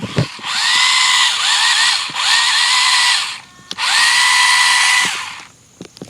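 Small electric drive motor of a toy RC car whining at full throttle in three bursts, each rising quickly in pitch and then holding steady, as its wheels spin in mud with the car stuck.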